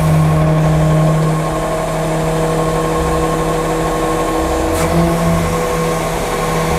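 Rear-loader garbage truck's engine and hydraulic system running steadily with a whine, lowering the raised tailgate shut.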